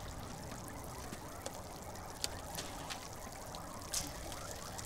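Water trickling steadily into a garden koi pond, with a few sharp drips or splashes about two and four seconds in.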